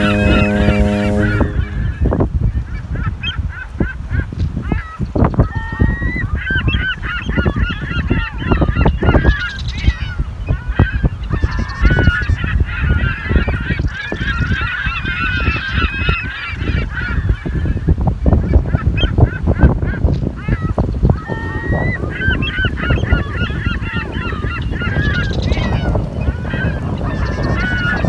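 A flock of birds calling over and over in a harbour. A steady low horn sounds at the start and cuts off a little over a second in. Wind rumbles on the microphone throughout.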